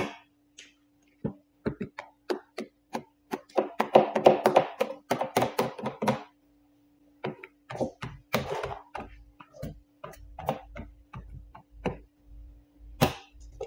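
Hand squeegee worked over wet paint protection film on a wooden bench top: a run of short scraping strokes and knocks, busiest a few seconds in and again about eight seconds in. A faint steady hum sits underneath.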